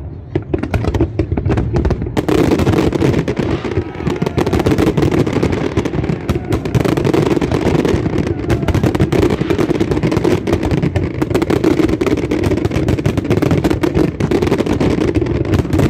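Fireworks exploding in rapid, dense succession: a continuous crackle of many bangs, growing denser about two seconds in.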